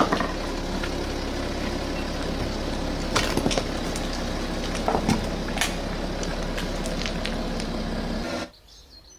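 Car engine running steadily, with a few sharp cracks and snaps about three and five seconds in. It cuts off abruptly near the end.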